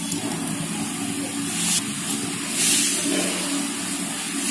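A steel spoon stirring and scraping through dry ground herbal powder in a stainless-steel bowl, in a few hissing swishes, over a steady low hum.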